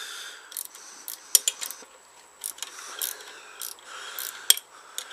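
Irregular sharp metallic clicks and short scrapes of hand tools and small engine parts being handled and worked.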